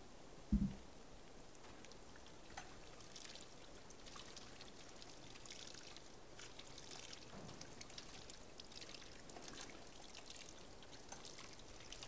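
Water running faintly from the tap of a plastic bucket handwashing station over hands being rinsed, with a low thump about half a second in.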